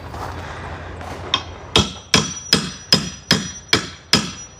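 A hammer striking eight times in quick, even succession, about two to three blows a second, each blow with a short metallic ring.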